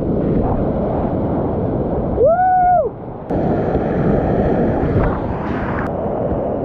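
Whitewater rapids rushing and crashing around a kayak, heard close on a paddler-mounted camera with wind buffeting the microphone. About two seconds in, a short whoop rises and falls over the water noise, and the sound briefly drops away just before three seconds.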